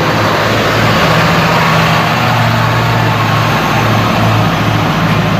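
A bus engine running steadily at an even pitch, with a wide hiss over it.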